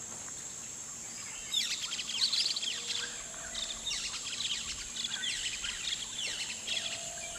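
Birds chirping in quick, overlapping calls from about a second and a half in, over a steady high-pitched insect drone.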